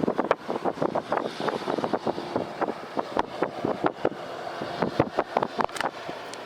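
Dense, irregular taps and knocks, several a second, over steady wind noise.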